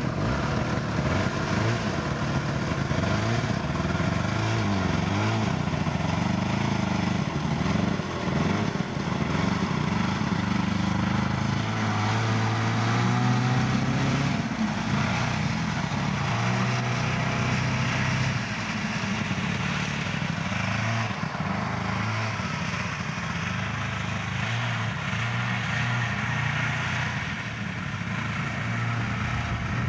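Two-stroke engine of a 1972 Ski-Doo Olympique snowmobile running while it is ridden, its pitch rising and falling with the throttle in the first half, then holding steadier.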